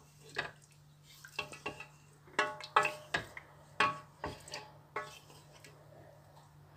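Wooden spoon knocking against the side of a metal cooking pot while stirring thick curry: about a dozen sharp, irregular knocks, each with a brief metallic ring.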